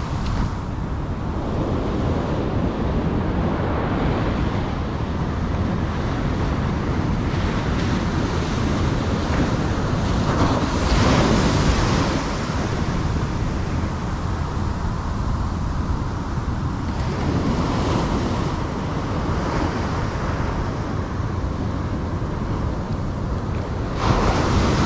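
Shore break of small ocean waves, the surf rushing and washing up the sand, with wind rumbling on the microphone. The wash swells loudest about ten to twelve seconds in and again near the end.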